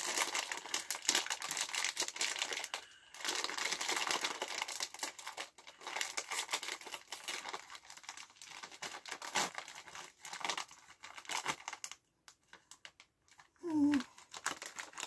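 Crinkling and crackling of a plastic crisp packet being handled and worked open, dense for most of the time, then thinning out and stopping. A short voiced sound follows near the end.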